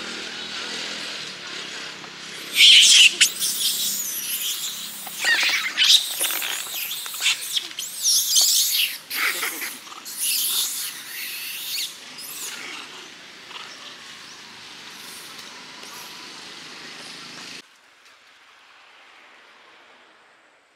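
Monkeys, long-tailed macaques, shrieking and squealing in a run of high, sliding calls, loudest in the first half; the sound cuts off sharply a few seconds before the end, leaving only a faint hiss.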